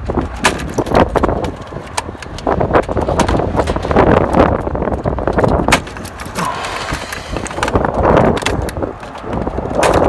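Gloved hands pulling plastic multi-pin wire connectors off a furnace control board: a run of irregular clicks, snaps and rattles of plastic and wire, over a low rumble of wind on the microphone.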